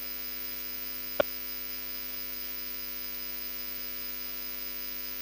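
Steady electrical mains hum with a single short click about a second in.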